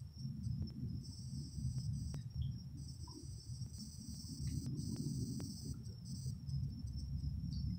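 Night insects chirring in a high, steady buzz that stops and starts in long stretches, over a louder, fluttering low rumble.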